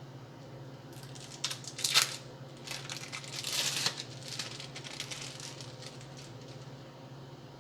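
Plastic food packaging crinkling and rustling in a few irregular bursts as a slice of cheese is pulled out of it; the loudest crackle comes about two seconds in, with another spell a second or two later.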